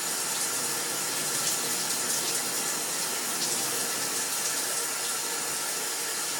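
Shower water running steadily, an even hiss of spray.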